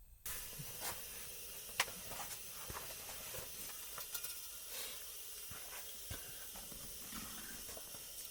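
Manaslu kerosene pressure stove burning with a steady hiss, joined by a few scattered sharp clicks. The hiss comes in suddenly just after the start.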